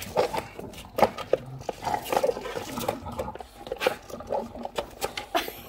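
English bulldog chewing and gnawing on the edge of a skateboard deck: irregular clicks and scrapes of teeth on the board.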